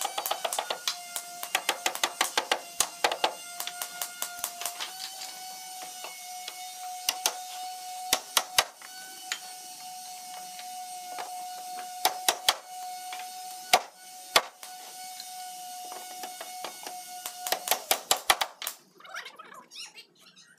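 Runs of sharp wooden knocks and taps as thin panels are set and fitted into a grooved wooden frame, several a second at times and single knocks in between, over a steady high whine. The knocks and the whine stop together a little before the end.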